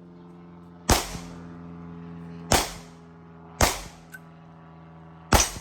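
Four gunshots at uneven intervals, one to two seconds apart, with a faint click between the third and fourth, over a steady low hum.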